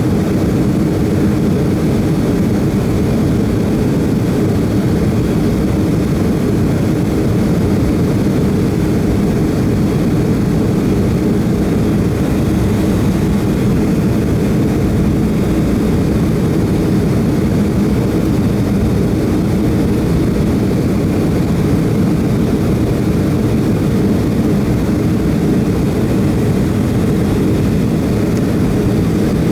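Steady engine and airflow noise inside the cabin of a Boeing 757 airliner, an even low rumble that holds unchanged throughout.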